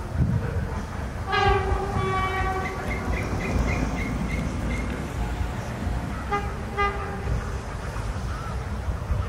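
A locomotive sounds one long blast about a second in, then two short toots at the same pitch, over a low steady rumble.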